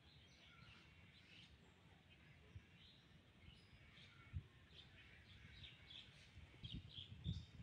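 Faint chirping of small birds, many short calls overlapping. A few soft low thumps come in the second half, the loudest near the end.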